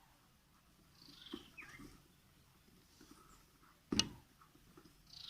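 Faint handling noise of ceiling fan lead wires being pulled through the stator winding, with one sharp click about four seconds in and two faint short falling chirps.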